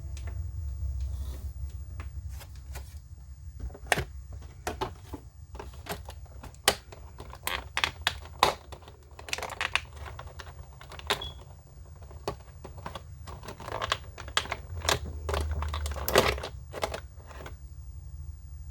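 Irregular clicks, taps and light rustles from hands handling an action figure's plastic packaging and parts, over a steady low hum.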